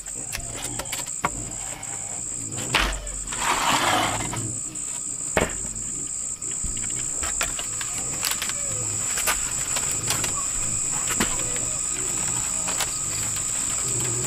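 A steady, high-pitched insect drone runs throughout, with scattered sharp clicks and knocks and a brief rustling scrape about three and a half seconds in.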